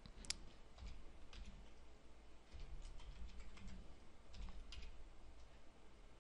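Faint typing on a computer keyboard: a few irregular keystrokes, with one sharper click about a third of a second in.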